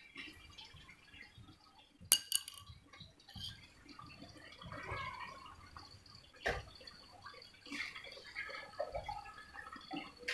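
Water being handled in a metal bucket: a sharp metal clink about two seconds in and another knock about six and a half seconds in, with water scooped out by a mug and poured, splashing and dripping in between.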